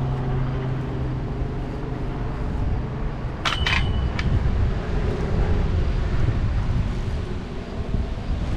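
Wind rumbling on the microphone, with a low engine hum that fades out in the first couple of seconds. About three and a half seconds in, a few sharp metallic clinks with a short ring, as the landing net's frame knocks against the metal railing.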